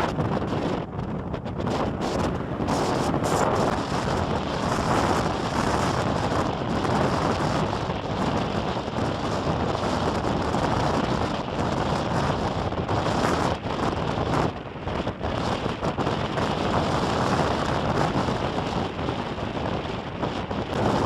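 Storm-force wind in gusts buffeting the microphone, a loud rushing roar that swells and drops back every few seconds.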